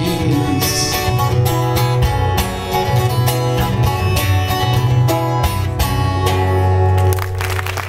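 Acoustic guitar strummed over grand piano in the instrumental close of a song; the music stops about seven seconds in and applause begins.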